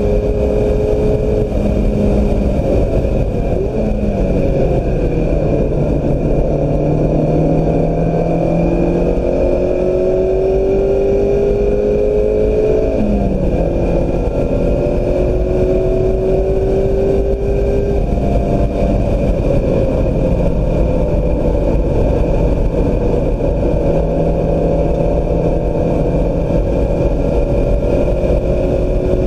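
2016 Mazda MX-5 Miata's four-cylinder engine under hard driving on a racetrack, its pitch climbing slowly as it pulls and dropping sharply a couple of times, with steady road and wind noise beneath.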